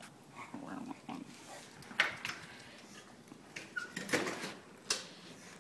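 A bulldog whimpering faintly, with a few sharp clicks and knocks about two, four and five seconds in, the first the loudest.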